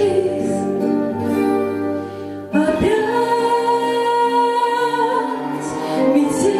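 A female singer holds long notes over an instrumental backing track, with a brief break about two and a half seconds in before the next sustained note.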